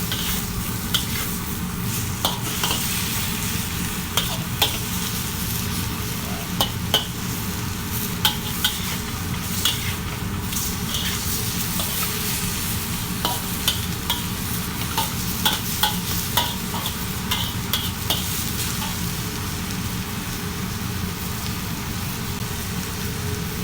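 Chopped chicken sizzling and frying in a pan as it browns, stirred now and then with a utensil that knocks sharply against the pan at irregular moments.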